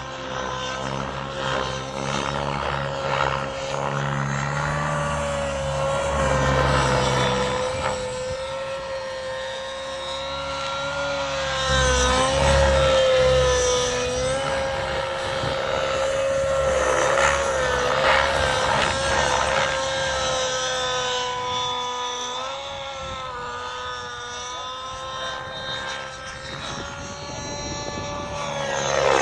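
SAB Goblin Black Nitro radio-controlled helicopter's nitro engine running at a steady high pitch through aerobatic flight. The pitch dips briefly now and then, and the sound grows louder and fainter as the helicopter moves around the sky.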